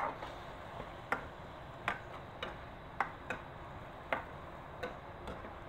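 Metal ladle clinking against the side of a metal cooking pot while stirring, a sharp clink every half second to a second.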